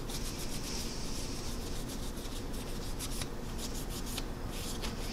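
Paper towel rubbed back and forth over a plastic scale-model aircraft, wiping excess dried panel line wash off its surface: a soft, scratchy rubbing in quick, uneven strokes.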